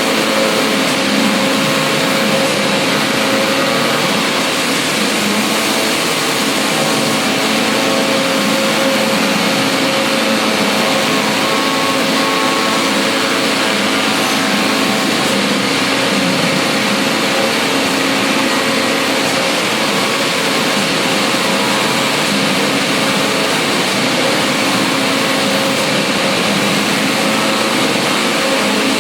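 CNC knife cutting machine running: a steady mechanical whir with a constant hum.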